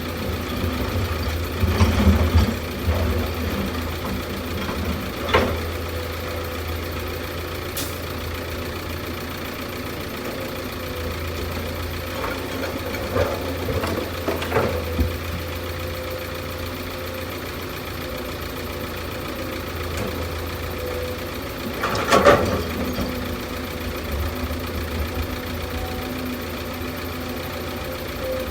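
Heavy construction machine's diesel engine running steadily at idle. A few short knocks or clanks cut through it, the loudest about 22 seconds in.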